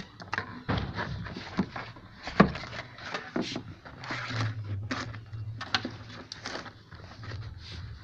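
Hands pushing a bundle of wires under a car's plastic interior trim along the door sill: irregular rustling with sharp plastic clicks and taps, the loudest about two and a half seconds in.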